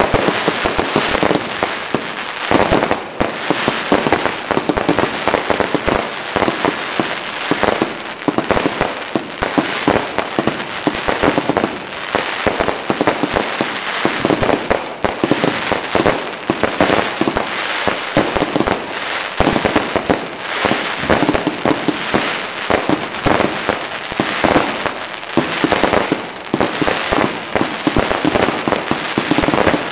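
Ornamental fireworks cakes (sierblokken) firing: a dense, continuous run of rapid shots, pops and crackle with no pause.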